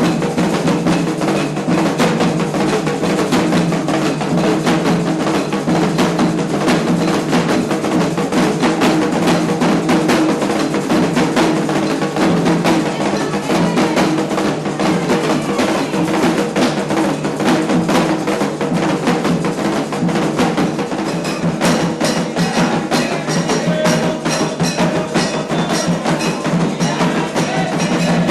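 Candomblé ritual percussion: atabaque hand drums playing a fast, continuous rhythm with a metal bell struck in time.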